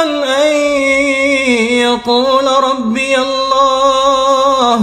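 A man reciting the Quran in a melodic chant, drawing out and ornamenting long vowels with a wavering pitch. There is a brief break about two seconds in.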